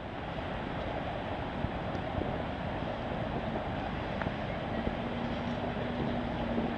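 Steady rumbling noise with wind buffeting the microphone; a low steady hum joins about five seconds in.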